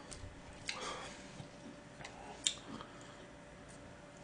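Quiet table-side eating noises: a few soft clicks and small handling sounds as wooden chopsticks and fingers pick at strands of seaweed, the sharpest click about two and a half seconds in.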